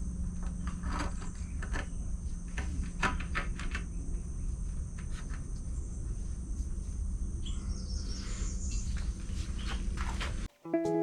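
Outdoor ambience: a steady high insect drone over a low hum, with scattered clicks and a brief bird chirp about eight seconds in. It cuts off suddenly near the end, and music with steady pitched notes begins.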